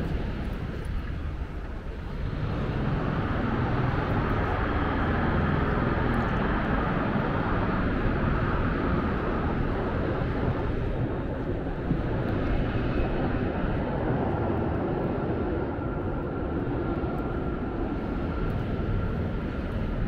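Aircraft passing overhead: a steady engine rumble that swells about two seconds in and holds, with a faint high steady tone in the later part.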